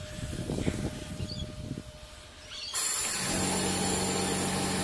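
Faint rustling of a rag and pipe being handled, then a little under three seconds in a compressed-air blower cuts in with a sudden loud, steady hiss and a low hum beneath. The air is pressurising a welded exhaust pipe to check the welds for pinholes.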